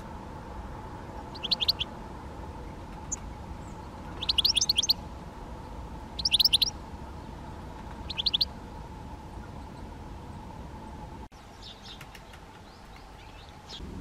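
Great spotted woodpecker calling in four short bursts of quick, sharp, high-pitched notes, each lasting under a second, over a steady low background hum. Fainter calls follow near the end.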